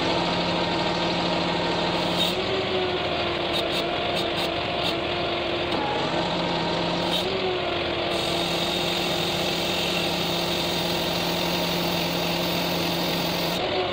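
Truck engine running to drive a truck-mounted hydraulic knuckle-boom crane, a steady mechanical hum whose pitch shifts slightly a few times as the crane is worked.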